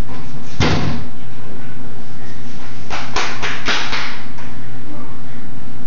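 Hard knocks from a child's play kitchen being handled: one bang about half a second in, then a quick run of about five knocks around three seconds in.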